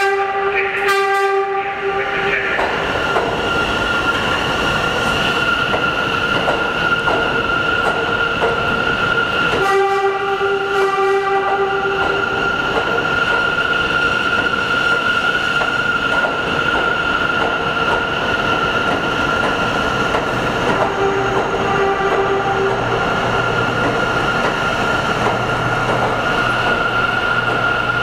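Bombardier R179 subway train pulling into a station, with a steady high whine and wheel noise as it rolls slowly along the platform. Its horn sounds at the start and again about ten seconds in, each for about two seconds, with a fainter, shorter blast around twenty-one seconds; a low hum sets in from then on.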